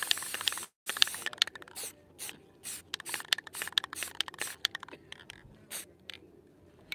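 Aerosol spray-paint can sprayed over a stencil in many short hissing spurts, which thin out after about five seconds.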